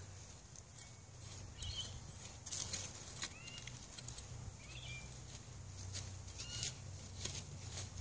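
Small metal hand trowel scraping and digging into soil to loosen potatoes, a series of short irregular scrapes. Faint short bird chirps now and then.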